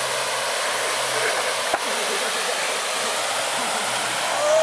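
Water gushing from a wide-open fire hydrant: a steady, even rush of spray.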